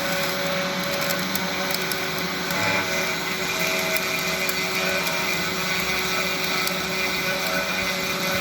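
A 52 mm spindle motor on a CNC 3018 router running steadily, a constant whine and hum with faint scattered ticks over it. The spindle's own airflow draws dust through a 3D-printed dust shoe.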